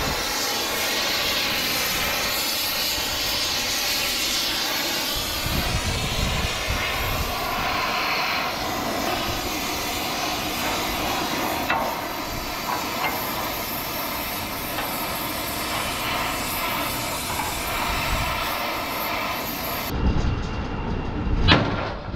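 An oxy-acetylene torch flame hisses steadily as it heats a bent steel truck chassis rail. Near the end, after a cut, a sledgehammer strikes the steel frame once.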